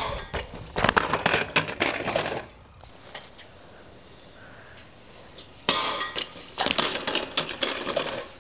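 BMX bike clattering on pavement and a steel street rail: sharp metallic clinks and knocks in two bursts, the first in the opening couple of seconds and the second starting suddenly past the middle, with a quieter stretch between.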